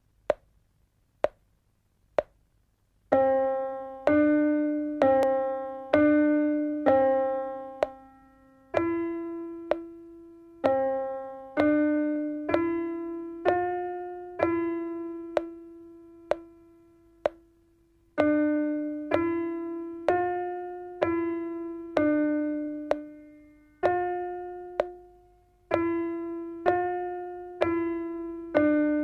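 Three clicks of a count-in about a second apart, then a simple piano melody played one note at a time in the middle register, about one note a second with some notes held longer. It is a beginner's piano exercise in 4/4 time.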